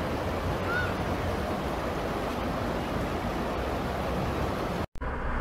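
Muddy floodwater rushing steadily over a stony riverbed, with a short high chirp about a second in. The rush cuts out abruptly near the end.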